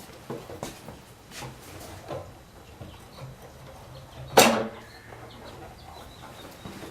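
Scattered clicks and knocks of hands and tools working in a car's engine bay, with one louder clatter about four and a half seconds in.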